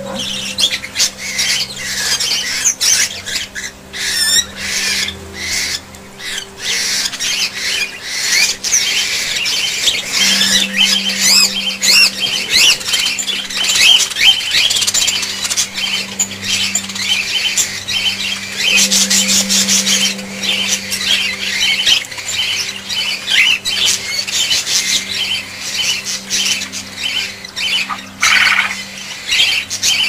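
A flock of budgerigars chattering and squawking continuously, a dense overlapping din of high chirps and chirrups, with a low hum coming and going underneath.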